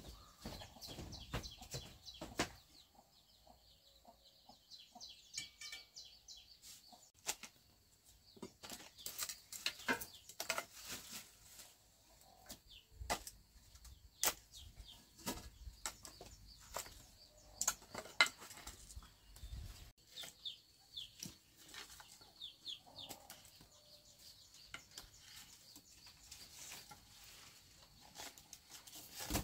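Chickens clucking, with scattered short knocks and clatter as firewood and lidded cooking pots are handled at a wood-fire hearth.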